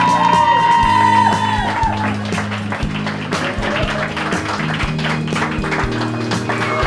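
Background music, with an audience clapping under it.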